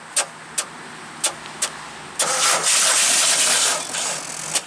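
The 1984 Pontiac Fiero's Iron Duke four-cylinder engine is running rough and skipping, with sharp pops at uneven intervals. Through the middle there is a loud rushing hiss lasting about a second and a half. The misfire comes from a blown head gasket.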